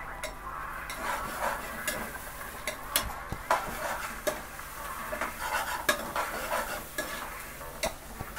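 A spoon stirring and scraping onions, green chillies, curry leaves and mint as they fry in oil in a pressure cooker, with sharp knocks of the spoon against the metal pot every second or so over a light sizzle.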